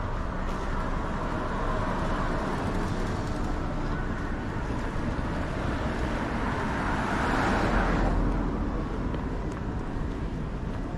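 Street traffic noise with a vehicle passing close, swelling to its loudest about seven seconds in and dropping off sharply at about eight.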